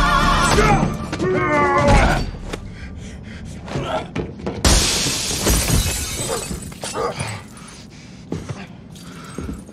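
Song with a singing voice fades out over the first two seconds. About four and a half seconds in, a loud crash of shattering glass, with the shards ringing for about a second, followed by scattered thuds and scuffles of a fight.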